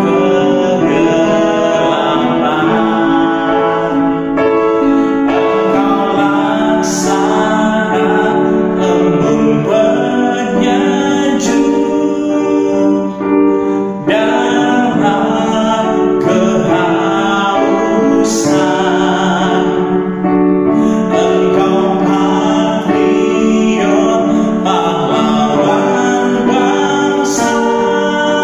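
A man singing to his own accompaniment on a Korg electronic keyboard.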